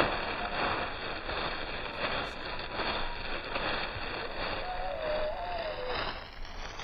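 Steady wind noise outdoors, with a short, wavering bird call from the gulls and ducks at the shore about five seconds in.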